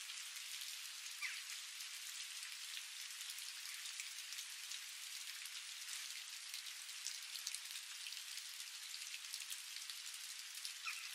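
A steady crackling hiss made of many fine, dense ticks, even throughout, with two faint short rising chirps about a second in and near the end.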